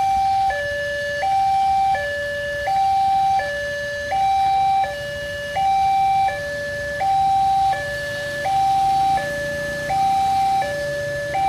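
Railway level-crossing warning alarm sounding: an electronic two-tone signal alternating evenly between a higher and a lower note, each held for about three-quarters of a second, warning that a train is approaching.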